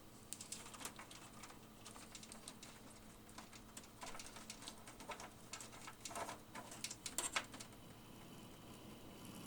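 Fan with a badly worn bearing, making irregular scraping chirps and clicks over a faint steady hum. The chirps come thickest from about four to seven and a half seconds in.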